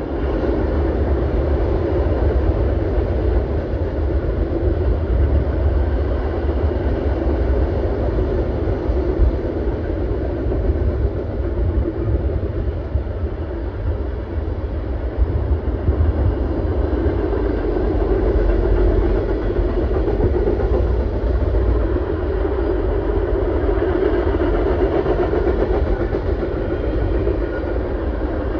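Freight cars of a long mixed freight train rolling past: a steady rumble of steel wheels on the rails.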